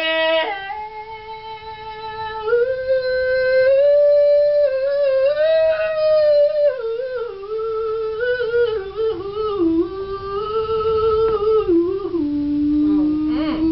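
A man singing solo without words, holding long notes that step and slide between pitches and break into short vocal runs, settling on a long lower held note near the end.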